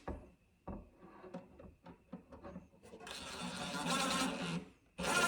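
Cordless drill on slow speed driving pocket-hole screws into a drawer front. A few light clicks and knocks come first. The drill then runs for about a second and a half, stops, and starts again louder just before the end.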